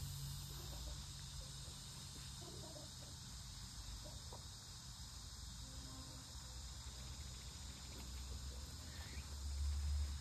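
Steady high-pitched insect chorus, typical of crickets or cicadas, with a low rumble swelling briefly about nine seconds in.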